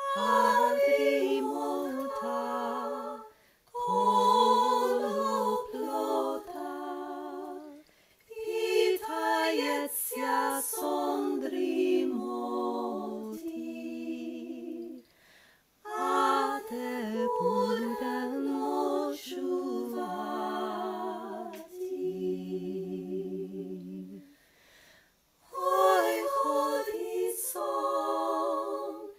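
A woman's solo voice singing a traditional Ukrainian lullaby unaccompanied, in phrases with short pauses between them.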